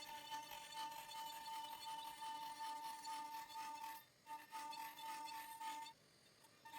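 CNC router spindle running at a steady speed with a whine while a bit cuts walnut in a 3D roughing pass. The sound cuts out briefly about four seconds in and again near the end.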